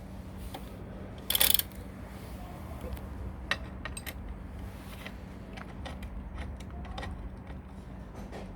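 Scattered light metallic clicks and taps of hand tools and a bicycle pedal being threaded into the crank arm, with one louder, brief scraping clatter about a second and a half in. A faint steady hum runs underneath.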